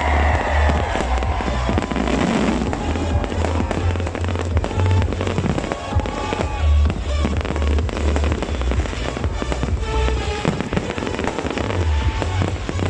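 Fireworks going off in a continuous barrage of bangs and crackles, over loud music played through loudspeakers with a heavy, pulsing bass beat.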